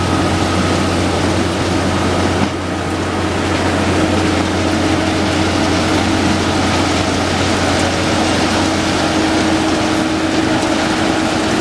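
Railway track-maintenance machine's diesel engine running steadily with a constant low hum and a steady higher tone over it, dipping briefly about two and a half seconds in.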